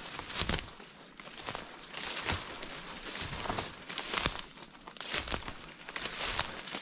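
Footsteps crunching and rustling through dry autumn leaves and low brush at a steady walking pace, about one step a second.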